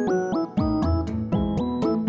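Light background music with a steady beat: short melody notes over low kick-drum thumps and quick high ticks, about four a second.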